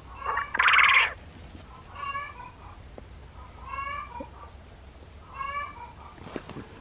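Japanese (Coturnix) quail calling: one loud, buzzy call about half a second in, then three shorter whistled calls falling slightly in pitch, each about a second and a half to two seconds apart.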